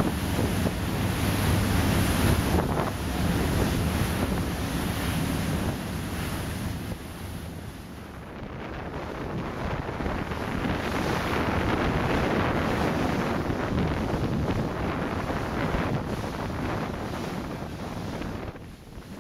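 Wind buffeting the microphone over the rush of sea and wake along the side of a boat under way, with a low rumble of its engine underneath. The rushing eases for a few seconds near the middle, then builds again.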